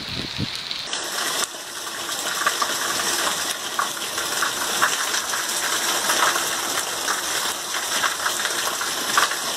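Heavy rain, with water gushing from a roof spout and running off the edge of a clay-tile roof, splashing steadily with many small irregular drips and splats. The sound changes abruptly about a second in.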